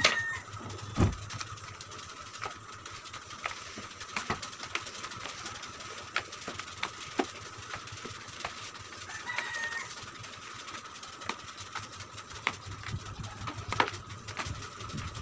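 Floor being wiped with a flat microfibre mop: scattered light knocks and taps of the mop head and pole, over a steady thin high tone. Two short chirps, one at the start and one about nine seconds in.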